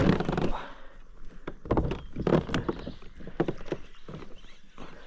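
Water splashing and knocking against a plastic fishing kayak's hull, in irregular strokes. The loudest comes right at the start, with more about two and two and a half seconds in.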